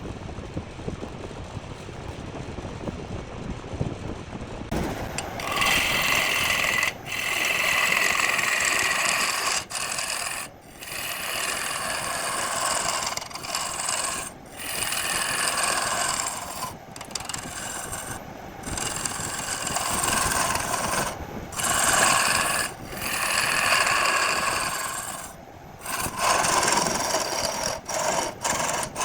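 A tool shaping or sanding a wood and resin workpiece in a run of passes a second or two long, with short breaks between them. The first five seconds are plainer and lower before the passes start.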